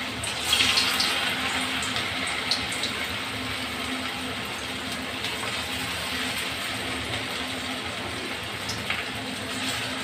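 Semolina-and-potato snack pieces deep-frying in hot oil in a kadai: steady sizzling and bubbling. The sizzle surges about half a second in as another piece is dropped into the oil, with a few pops later on.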